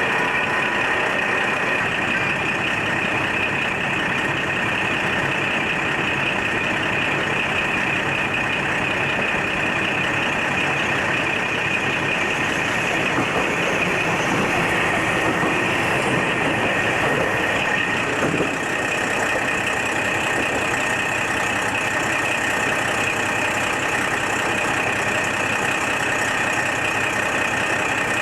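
Train under way, heard from on board: a steady rumble and rushing noise with a thin steady whine held high above it, unbroken apart from a brief dip about two-thirds of the way in.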